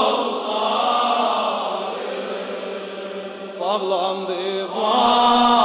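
Mourners chanting the refrain of a Shia noha (mourning elegy) together in a long held chant, with a lone male reciter's voice coming in about four seconds in.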